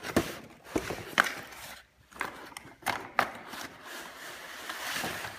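Cardboard toy packaging being handled: irregular knocks and clicks from the box flaps and insert, with a scraping rustle later on as the plastic toy is slid out of the box on its cardboard tray.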